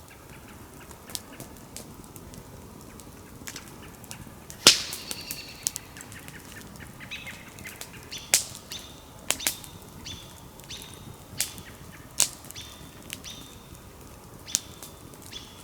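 Small campfire crackling, with sharp irregular pops and snaps, the loudest about four and a half seconds in.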